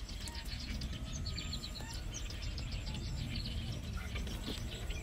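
Small birds chirping in many quick, repeated short notes over a steady low rumble.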